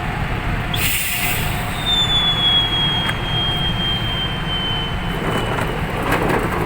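Truck engine running steadily while the load at the back is opened for unloading. About a second in there is a short hiss, then a thin high squeal that slowly drops in pitch for about four seconds, and scattered knocks and rattles near the end.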